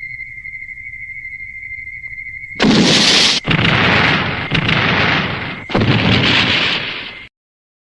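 Tokusatsu sound effects: a steady high electronic tone, then, about two and a half seconds in, a run of four explosion blasts, each dying away before the next, until the sound cuts off abruptly near the end.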